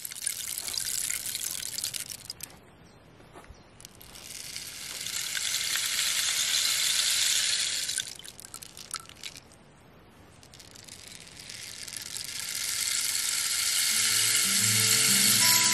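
Painted Meinl rain stick tipped end over end three times. Each turn gives a rushing shower of falling pellets: the first starts at once and fades away, the second builds and stops short, the third builds again. A few low musical notes come in near the end.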